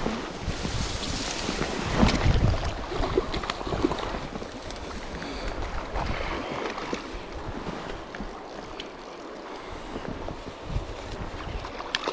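Wind buffeting the camera microphone over the sound of moving river water, with a loud gust about two seconds in. Near the end the hooked brown trout splashes at the surface.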